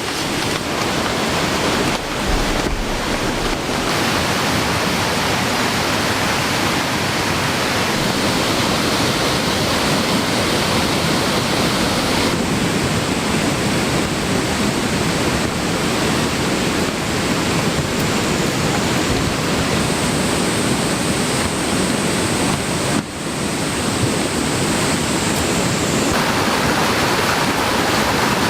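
Steady rush of a rain-swollen mountain stream in spate, running loud and unbroken.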